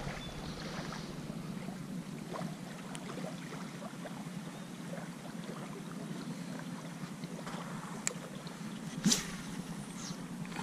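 Steady outdoor noise of wind and small waves lapping at a lake shore, with a few faint clicks about eight and nine seconds in.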